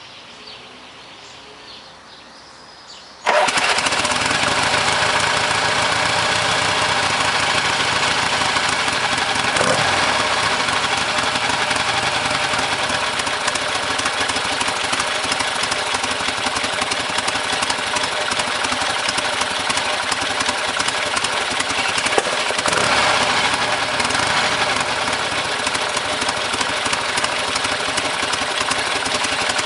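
A 1977 Harley-Davidson XLH Ironhead Sportster's 1000cc V-twin catches about three seconds in, then runs steadily at a fast, choked idle through its factory 2-into-1 exhaust, with a short rise in engine noise a little past twenty seconds in. The owner says the top end doesn't sound too good.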